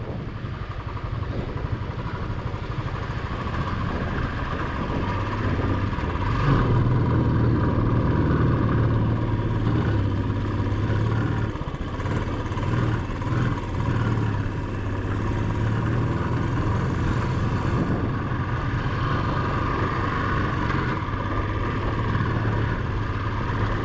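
Motorcycle engine running while riding along a rough mountain track, with wind and road noise over it.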